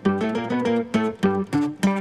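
Background music: a plucked guitar picking out single notes, about four or five a second.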